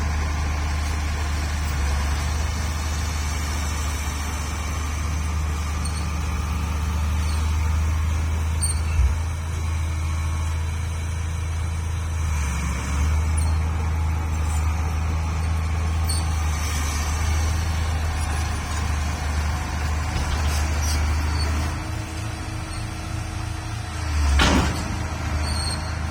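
A heavy vehicle's engine running with a steady low drone, and one short, loud burst of noise near the end.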